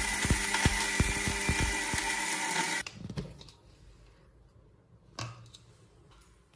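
Electric mixer grinder running at full speed, its motor grinding dry roasted spices into a coarse powder with dense rattling of the pieces in the steel jar. It switches off abruptly about three seconds in, followed by a few faint knocks.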